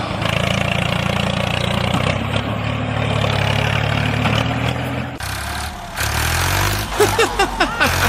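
Tractor engine running steadily, with a change in its sound about five seconds in. Near the end come a few short, squeaky chirps.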